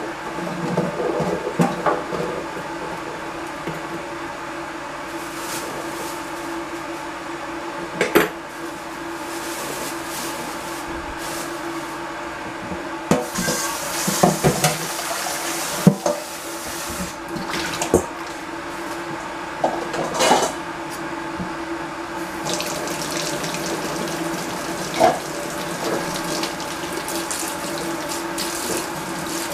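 Steady running water in a kitchen over a constant low hum, with scattered clinks and knocks of dishes and a metal bowl being handled.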